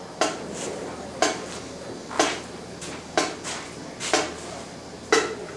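Sharp wooden-metallic clicks struck in a steady beat, the loudest about once a second with lighter clicks between, like marching percussion sticks tapping out a count before the band starts.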